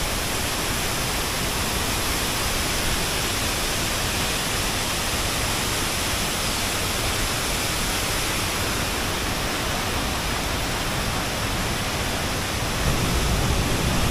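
Waterfall: a steady rushing roar of falling water, getting a little louder and deeper near the end.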